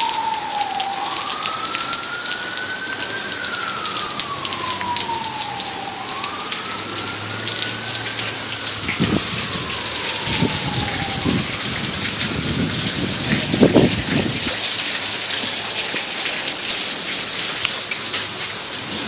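Heavy rain pouring down in a steady hiss, with an emergency-vehicle siren wailing in slow rises and falls that fade out about halfway through. A few low rumbles come in the middle.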